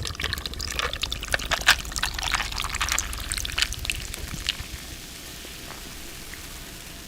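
A drink being poured into a cup of ice, the liquid splashing and the ice crackling and clinking. The pouring stops about four and a half seconds in.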